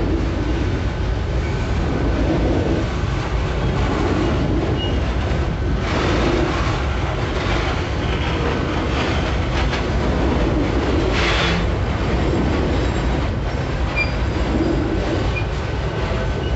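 Freight train of hopper wagons and boxcars rolling past at close range: a steady heavy rumble of steel wheels on rail with clacking over the joints, and louder rushes of wheel noise about six seconds in and again near eleven seconds.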